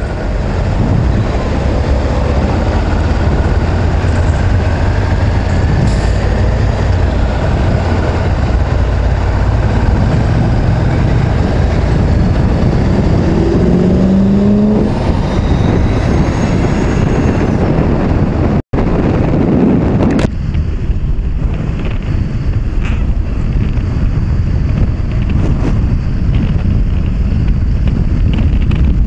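Honda CB500X motorcycle riding at freeway speed in traffic: heavy wind rush on the action camera's microphone over the engine and surrounding trucks and cars. Two-thirds of the way through, the sound cuts out for an instant and then comes back duller.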